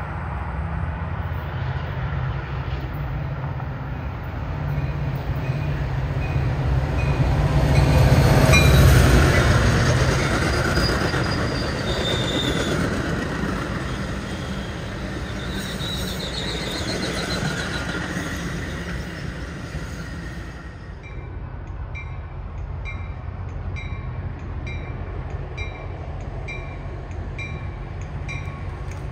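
Metra commuter train passing close by: the diesel locomotive's engine rumble is loudest about nine seconds in, followed by the rolling clatter of bilevel gallery cars with brief wheel squeal. From about 21 seconds on, a grade-crossing bell rings steadily, a bit more than once a second, under the quieter sound of the train moving off.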